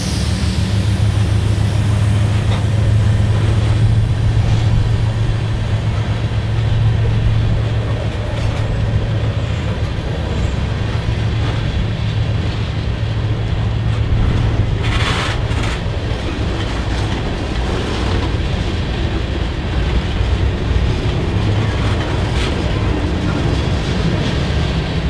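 Freight train of tank cars rolling past close by: a steady low rumble of steel wheels on the rails, with a brief sharper, higher noise about fifteen seconds in.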